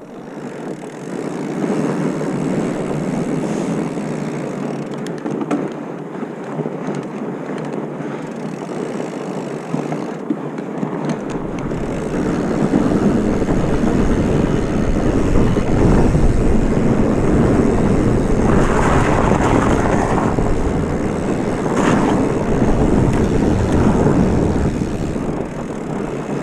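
Wind rushing over the microphone while riding along a trail, with a deep rumble joining in after about eleven seconds as the ride gets faster and rougher.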